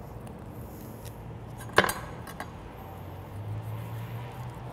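A carving knife knocks once against a wooden cutting board as a turkey wing is cut off at the joint, about two seconds in, followed by a fainter tick, over a low steady hum.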